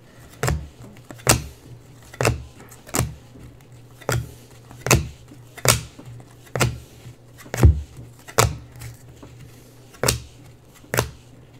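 Trading cards being flicked off a hand-held stack and tossed onto a pile one at a time, a sharp card snap about every 0.8 seconds, over a low steady hum.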